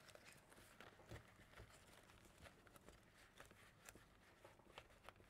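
Near silence, with faint rustling and a few light clicks of flower stems and leaves being pushed into an arrangement.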